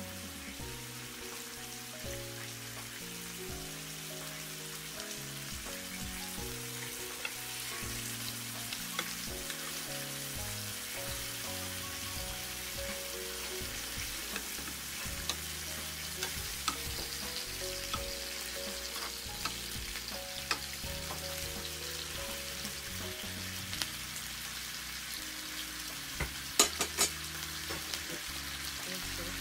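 Beef large intestine (daechang) sizzling steadily in its fat on an electric grill pan, with small scattered clicks as metal tongs turn the pieces. A few sharp clicks near the end, with soft background music underneath.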